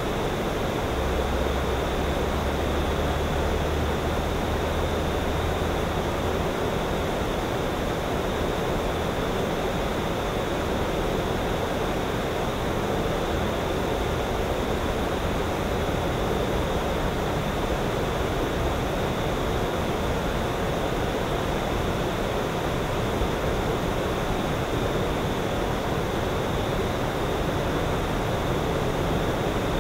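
Steady, even outdoor ambience like a soft hiss, with a low hum that stops about six seconds in.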